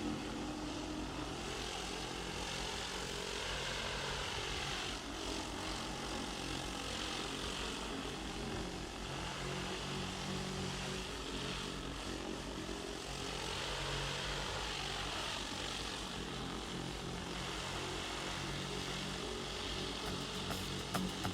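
A steady engine drone with a continuous hiss over it.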